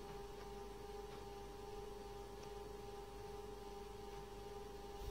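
Faint, steady electrical hum over a light hiss: quiet room tone.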